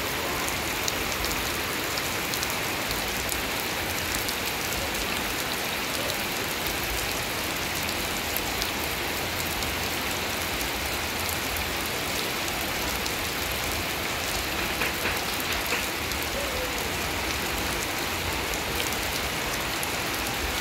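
Steady rain, not very heavy, falling on grass, leaves and a puddled dirt path, with the fine ticks of single drops heard through the even hiss.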